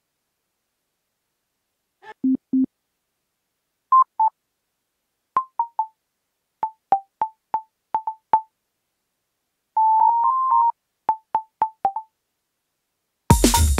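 Korg Electribe 2 synth part set to a very short decay, played on the pads as short, beep-like percussive notes: two low notes, then a string of higher blips hopping between a few close pitches. Just before the end a full electronic pattern with a pulsing bass comes in.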